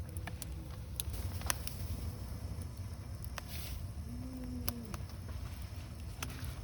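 Wood fire crackling with scattered sharp pops over a steady low rumble, which the camper takes for the sound of water coming to the boil over the fire. A short low moaning tone sounds about four seconds in, sliding down at its end.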